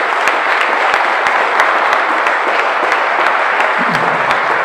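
Loud, steady applause from an audience clapping.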